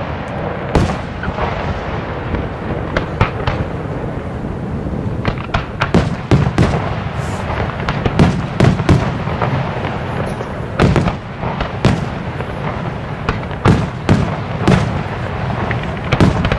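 Fireworks display: aerial shells bursting in quick, irregular succession, sharp bangs over a continuous low rumble.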